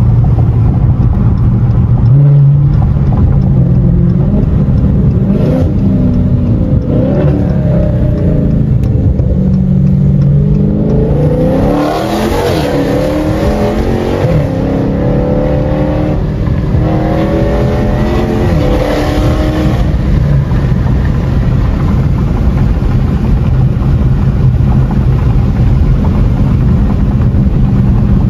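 Dodge Challenger Scat Pack's 392 Hemi V8, heard from inside the cabin: a steady drone at first, then from about six seconds in it pulls hard through the gears, its pitch rising and dropping at each upshift, before settling back to a steady cruise drone near twenty seconds in.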